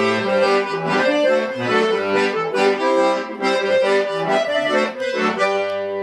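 Accordion playing a chastushka tune: rhythmic chords over a bass line, settling on a long held chord near the end.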